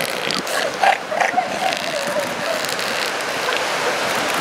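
Female northern elephant seal giving a wavering, drawn-out call about a second in, lasting about two seconds, while a bull mounts her; a steady hiss of surf and wind lies underneath.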